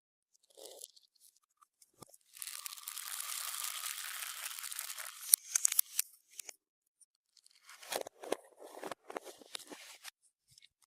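Clear slime being worked by hand: a steady crackling hiss for about three seconds, then sharp pops and a second stretch of crackles and pops near the end.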